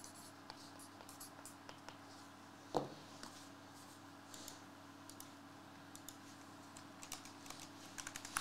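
Faint scattered clicks and taps of hands working a pen and handling a shrink-wrapped trading-card box on a desk, with one louder knock about three seconds in, over a steady low hum.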